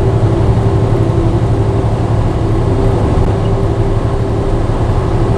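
Steady drone of a truck's engine and road noise heard inside the cab while driving, with a low hum and a steady mid-pitched tone.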